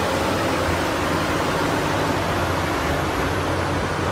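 Caterpillar 6015B hydraulic mining excavator running: a steady low engine drone under an even hiss of noise.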